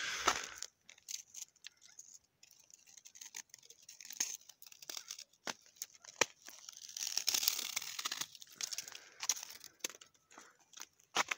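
Footsteps crunching through snow: uneven crackly crunches, thicker and more continuous for a couple of seconds past the middle.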